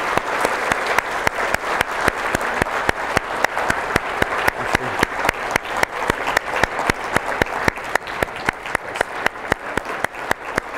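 An audience applauding: a steady wash of many hands clapping, with sharp single claps close by standing out over it.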